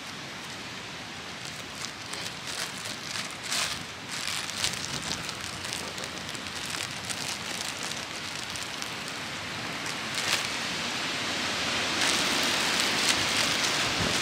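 Wind rushing through trees and over the microphone, rising into a stronger gust near the end, with scattered sharp crackles from about two to five seconds in.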